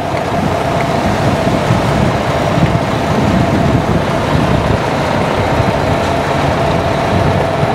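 International LoneStar semi-truck's Maxxforce diesel engine idling steadily, a low rumble with a steady whine on top.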